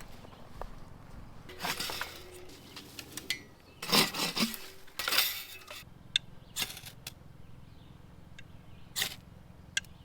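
Handling sounds: a few short rustles, then several sharp separate clicks and clinks, as of small hard objects knocking together.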